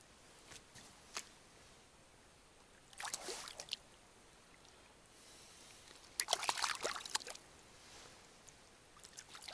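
Two short bouts of splashing and sloshing water, about three seconds in and again about six seconds in, the second longer and louder, with a few scattered clicks.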